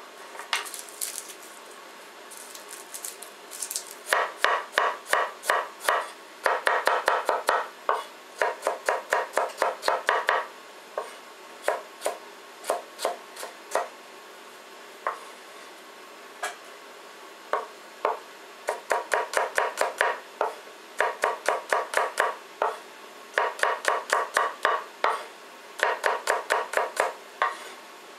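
Chinese cleaver mincing garlic on a wooden chopping board: rapid runs of knocks, about five a second, in bursts of one to two seconds with short pauses between, starting about four seconds in.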